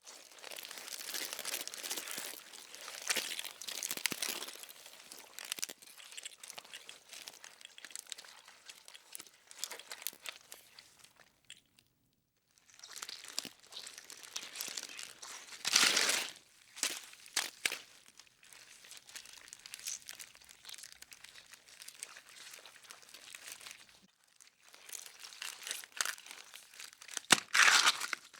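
Crumpling and crinkling noise with dense crackles, in three separate takes split by short pauses, with a few louder crunches, the loudest near the end.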